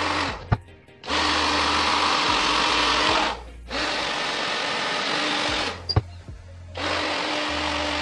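Handheld hair dryer blowing in bursts of about two seconds, switched off and on again three times, with a short click in the gaps.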